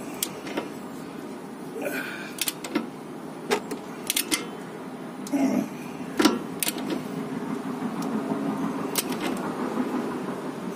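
Ratchet wrench clicking and tapping as it tightens the upper nut of a car's stabilizer link, in irregular sharp metal clicks over a steady background hum.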